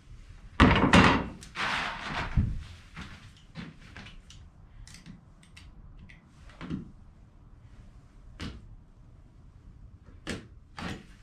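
A large T-square clattering as it is moved and laid down on a board about a second in, followed by scattered light knocks and scrapes as a freshly cut sheet is handled.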